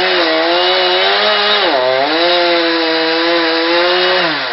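Two-stroke chainsaw running at high revs while cutting wood. Its pitch dips sharply a little under halfway through, then comes back up, and it drops again near the end.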